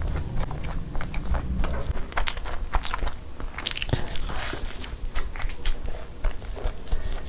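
Close-miked eating: chewing mouthfuls of puri with egg masala, with many sharp, wet mouth clicks throughout.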